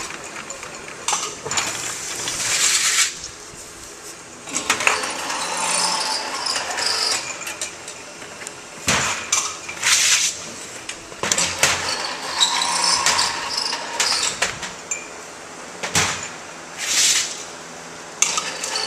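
Glass bottles clinking against each other and against steel as they are handled and labeled on a bottling line, with irregular clicks and knocks. Three short hissing bursts come and go, and two sharp knocks stand out.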